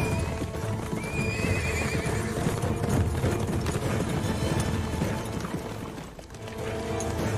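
Several horses galloping, a dense run of hoofbeats, with one horse whinnying about a second in, under background music. The hoofbeats drop away briefly about six seconds in.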